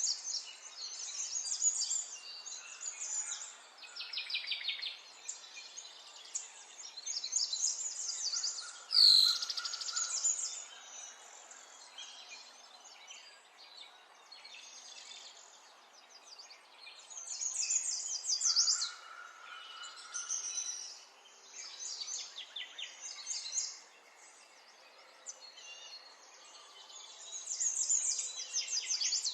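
Wild songbirds singing in spring: bursts of fast, high trilling phrases every few seconds, with one louder, sharper falling call about nine seconds in and a couple of short, lower whistled notes.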